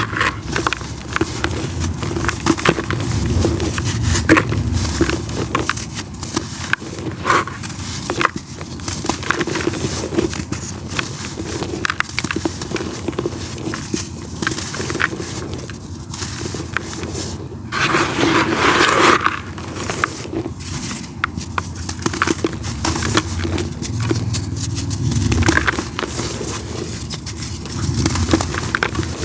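Dry red dirt crumbled and crushed by hand: a dense, continuous run of gritty crackles and scrapes.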